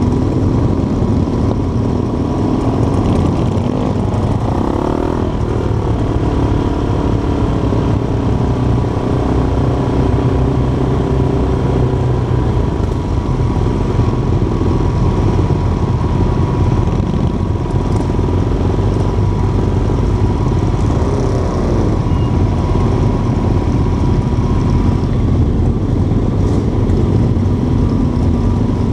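Motorcycle engines in a slow-moving group ride, heard from one of the bikes in the column: a dense, steady low engine drone with gentle rises and falls in revs. A thin steady whine sits above it and fades near the end.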